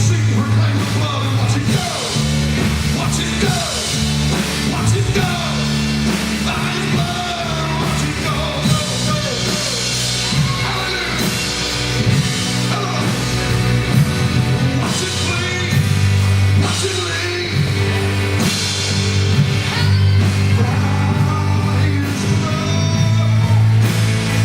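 Live church band playing a loud, driving groove on drums, cymbals and bass, with a voice singing over it.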